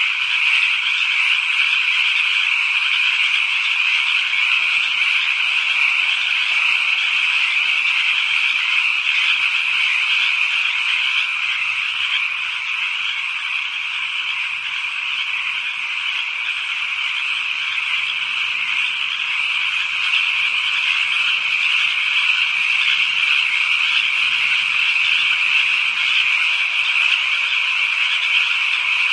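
Dense chorus of many frogs calling at night, a steady, unbroken high-pitched trilling wall of calls that dips slightly in loudness midway.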